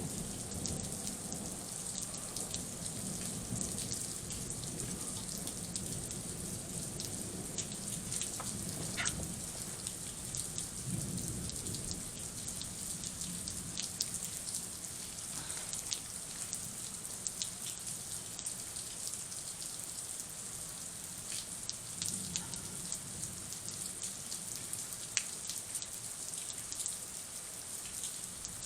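Steady rain falling, with the sharp ticks of single drops striking a surface.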